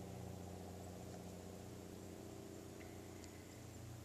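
Steady low mechanical hum of a small motor, holding one even pitch throughout.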